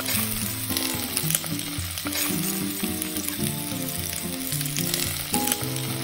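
Chicken pieces frying in melted butter in a terracotta pot, a steady sizzle, while they are turned over with metal tongs. Background music plays over it.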